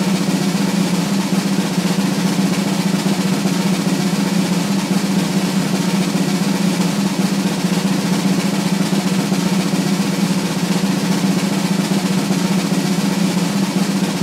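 A long, steady snare drum roll, even and unbroken throughout.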